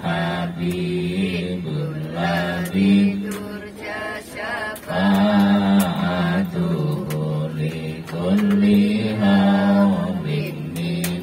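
A group chanting an Islamic sholawat in unison in long held notes, led by a man singing into a microphone.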